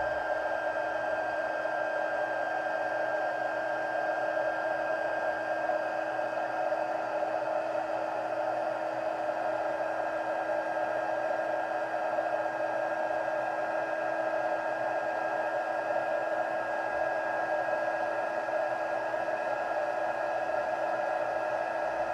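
Stampin' Up! embossing heat tool running steadily, a constant blowing with a steady whine, heating black embossing powder on a stamped card to melt it.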